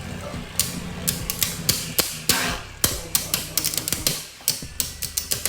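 Two Beyblade spinning tops, Zest Achilles and Divine Belial, clashing in a plastic stadium: rapid, irregular clicking and clacking as they hit each other again and again. The clashes thin out briefly about four seconds in, then pick up again.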